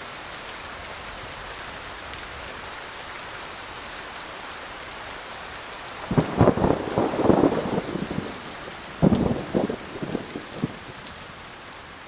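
Steady rain falling, with a crackling thunderclap about six seconds in that lasts around two seconds, and a second, shorter crack of thunder about nine seconds in.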